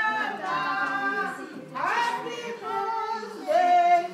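A group of voices, children and women among them, singing a birthday song together without accompaniment, in phrases of held notes that are loudest near the end.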